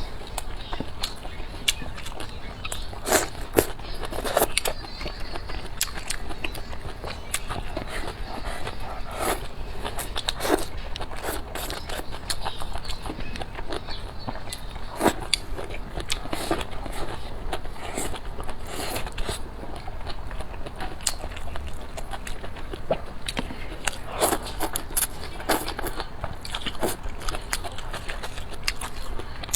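Close-miked eating: a person biting and chewing food, with frequent sharp clicks at an uneven pace.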